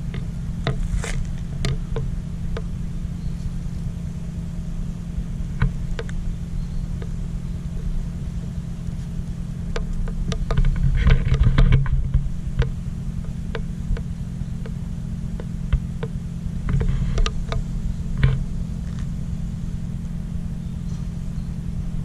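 Scattered clicks, knocks and rustles as a tabby cat moves around and brushes against the camera near a bowl of dry food, with a cluster of them about halfway through and another a few seconds later. Under them runs a steady low mechanical hum.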